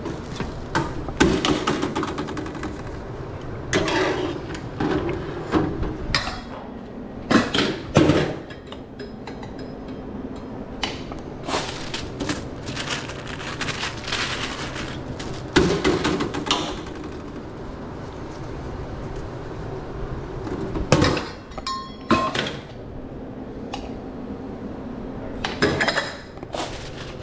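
Irregular knocks, clinks and clatter of utensils, lids and containers as hot dogs are put together at a hot dog stand, over a steady background noise. A few of the clinks ring briefly, about 22 seconds in.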